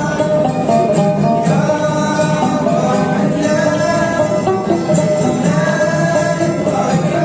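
A bowl-back mandolin and an acoustic guitar playing a tune together, the mandolin picked over the guitar's accompaniment.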